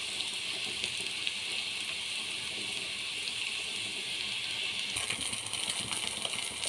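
Beaten egg frying in hot oil in a pan with sautéed capsicum: a steady sizzling hiss, with small crackling pops growing more frequent from about five seconds in.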